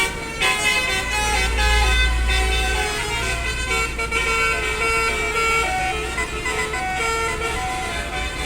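Bus telolet horn playing a melody of stepped musical tones, over the low rumble of the bus engine, which is loudest a second or two in.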